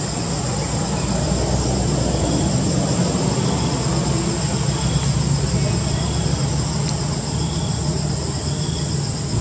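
A steady insect chorus: a continuous high buzz with a short chirp repeating about once a second. Under it runs a low engine-like drone that swells after about a second and eases off near the end.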